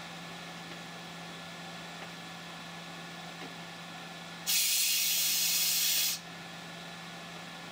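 CNC mill running with a steady hum while taper reaming a gas block pin hole. About four and a half seconds in, a compressed-air nozzle gives a loud hiss for under two seconds and cuts off sharply, blowing cutting oil down into the hole to keep the reamer from screeching.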